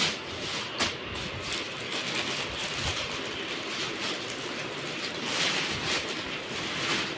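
Plastic gift bag and cellophane-wrapped packages rustling and crinkling steadily as they are handled and packed together.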